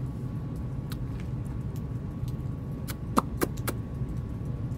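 Steady low rumble of outdoor background noise with a faint thin steady tone, broken by a few short sharp clicks about three seconds in.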